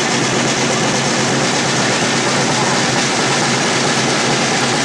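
Large crowd of spectators cheering and shouting, a loud, steady din of many voices.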